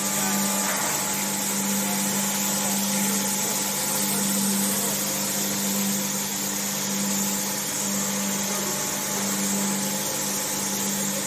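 Steady drone of vacuum-molding foundry machinery, a low hum under a continuous hiss of air, while a compressed-air spray gun sprays coating onto the film-covered pattern.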